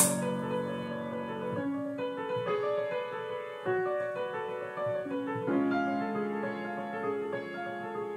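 Background piano music, slow sustained chords changing every second or so. A single sharp click sounds right at the start.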